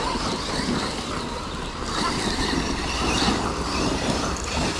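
Large electric RC trucks racing on a dirt track: a steady mix of motor whine and tyres churning dirt, with wind on the microphone.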